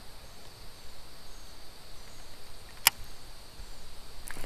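Quiet riverside ambience with a faint steady insect buzz. A single sharp click comes nearly three seconds in, and a few louder knocks come near the end.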